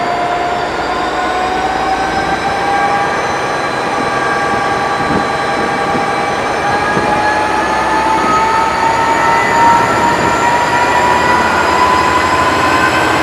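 Class 57 diesel locomotive's EMD two-stroke engine under power as it pulls a train away from a standstill, a strong whine rising slowly in pitch over a rumble.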